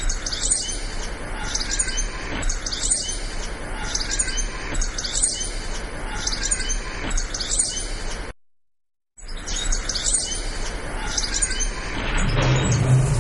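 Birdsong: a bird repeating short high chirps over and over, roughly one or two a second, with a brief cut to silence just after eight seconds. Music begins to come in near the end.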